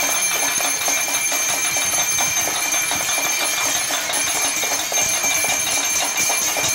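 Many children clapping, beating stainless steel plates and ringing small hand bells all at once: a dense, rapid clatter with a steady high ringing over it.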